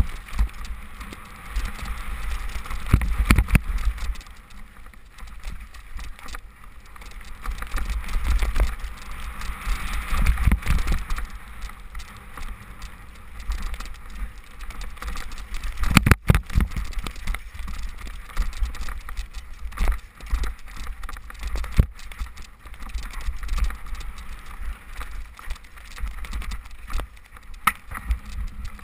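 Specialized Demo 8 I downhill mountain bike ridden fast down a wet, muddy trail: wind rumbling on the microphone, with the bike's rattle and many sharp knocks over rough ground. The hardest knock comes about halfway through.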